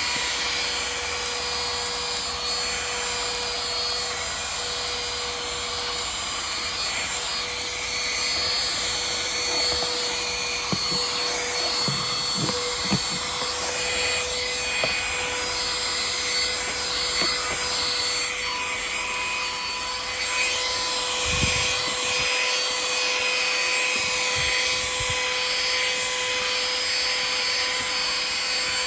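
XREXS cordless handheld car vacuum running continuously, a steady motor whine over airflow hiss as it sucks debris from the car floor.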